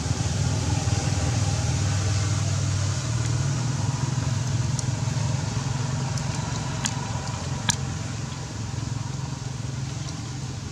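A motor engine running steadily, loudest in the first three seconds, with a couple of sharp clicks a little past the middle.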